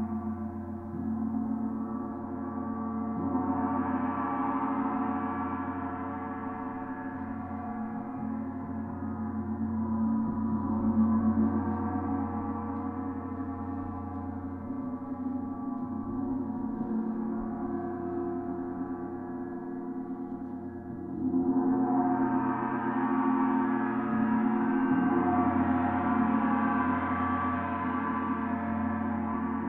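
Oetken Sedna 28-inch planetary gong played with soft-headed mallets: a sustained, shimmering wash of many overlapping ringing tones. It swells a few seconds in, then rises sharply and grows fuller about two thirds of the way through as the playing builds.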